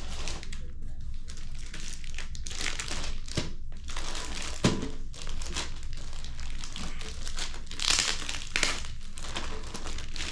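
Plastic packaging crumpling and rustling as it is handled, in irregular bursts, with a sharp knock about four and a half seconds in.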